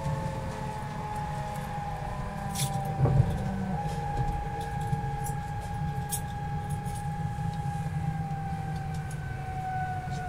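Siemens Velaro D (DB class 407) high-speed train's IGBT traction inverter and motors whining as the train decelerates on the 15 kV 16.7 Hz supply. The tone falls slowly as the train slows, over a steady low rumble of running noise. A few clicks and a short, louder knock come about three seconds in.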